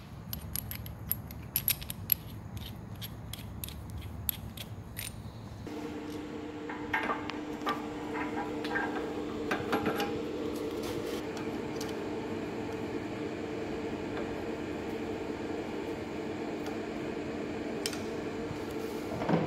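Sharp metal clicks and taps as a cap screw is handled against a steel tool clamp. About six seconds in, a steady two-tone hum starts from the Sir Meccanica WS2 line boring machine's drive running, with clicks over it for the next few seconds as the clamp is fitted on the boring bar.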